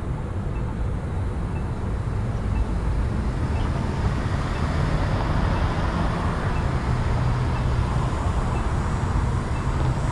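City street traffic: a steady rumble of passing vehicles, a little louder after the first couple of seconds. A faint high tick sounds about once a second throughout.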